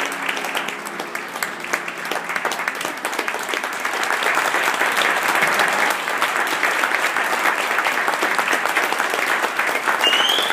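Audience applauding steadily after a ballroom dance, with the last of the dance music fading out in the first second or two.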